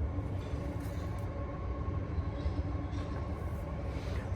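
Steady low background rumble with a faint steady hum, and no distinct event.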